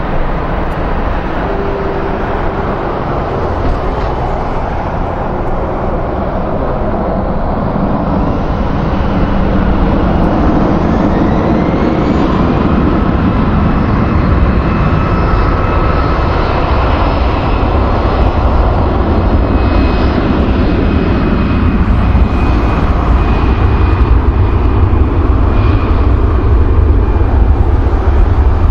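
Jet airliner engines: a loud, dense rumble that grows steadily louder, with a thin whine that rises in pitch about ten seconds in.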